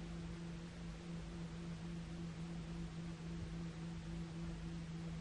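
Heavy diesel engine idling as a steady, even hum with a constant low tone over a low rumble and hiss.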